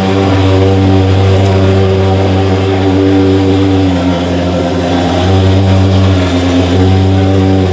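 Mosquito fogging machine running with a loud, steady, buzzing engine drone, its pitch wavering slightly about halfway through.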